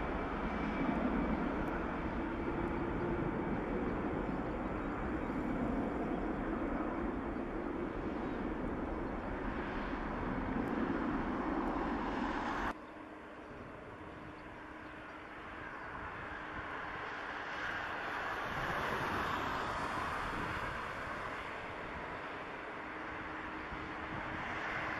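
Airbus A330-200 jet engines and runway rolling noise during the landing rollout, a steady rushing drone. About halfway through it cuts off abruptly to a quieter engine hum, which swells again a few seconds later as the airliner slows on the runway.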